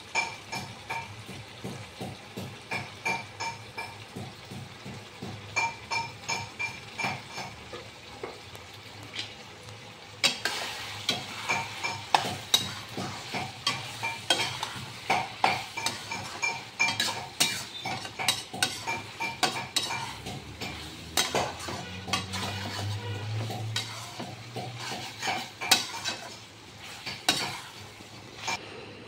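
Chicken intestines sizzling in a nonstick wok while a spatula stirs them, scraping and knocking against the pan a few times a second with a brief metallic ring.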